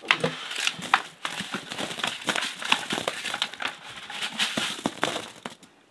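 Bare feet treading and stamping in wet clay-and-sand cob mix on a canvas tarp: mixing cob by foot, with irregular wet slaps and the tarp crinkling underfoot. About four seconds in, a bucket of dry material is tipped onto the mix.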